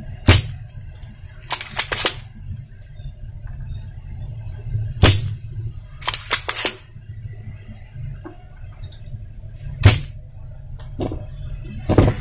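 Spring-loaded desoldering pump firing with sharp snaps, some single and some in quick clusters every few seconds, as solder is sucked off the joints of a transistor being removed from an amplifier circuit board. A steady low hum runs underneath.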